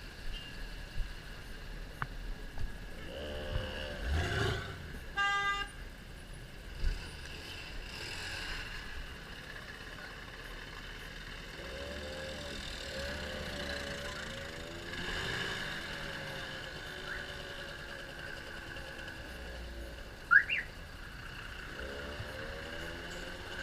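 Street traffic and crowd noise, with a short horn toot about five seconds in and faint voices now and then. Near the end there is a brief sharp rising squeak, the loudest sound.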